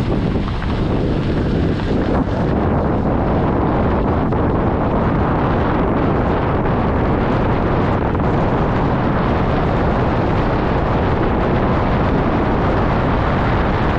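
Steady wind rush buffeting an outside-mounted camera's microphone, over the road noise of a vehicle driving along a dirt road.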